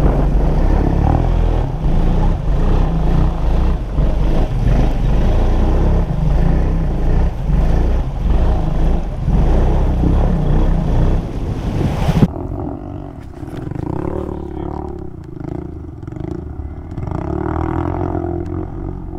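ATV engine running hard as the quad ploughs through a muddy pond. About twelve seconds in the sound cuts suddenly to quieter, more distant ATV engines.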